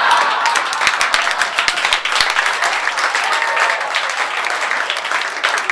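Comedy-club audience applauding and laughing after a punchline: dense, steady clapping from many hands.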